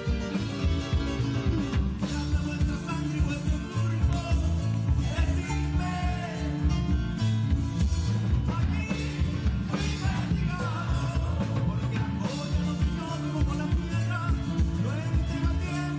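Live rock band playing, with a singing voice over a driving bass and drum beat.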